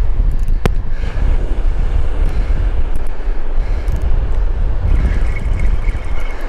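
Wind buffeting the microphone, a loud, uneven low rumble, with one sharp click less than a second in.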